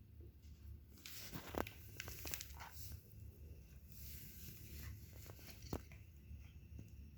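Crinkling and rustling with scattered sharp clicks, starting about a second in.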